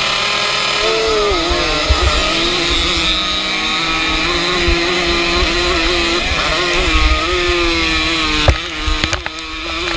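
Vintage motocross bike engine running hard at high revs, its pitch holding steady with small wobbles. Near the end it eases off briefly with a couple of sharp knocks, then picks up again.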